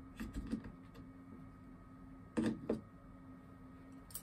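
Clicks and knocks of a hook and pliers being hung on a wall-mounted pegboard. A few light clicks come near the start, then two louder knocks a little past halfway, with a faint click near the end.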